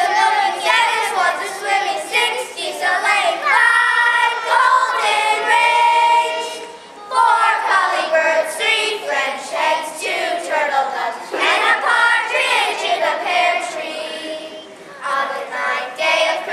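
A group of children singing together, with held notes and short breaks between phrases about seven seconds in and again near the end.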